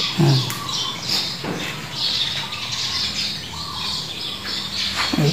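Birds chirping and squawking in the background, many short, high calls overlapping on and off.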